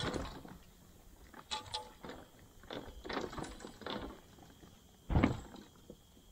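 Kayak fishing gear being handled while packing up: scattered light clicks and knocks, with a louder thump about five seconds in.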